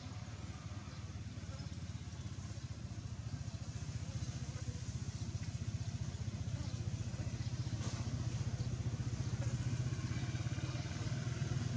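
A motor engine running steadily in the background, a low hum that grows slowly louder.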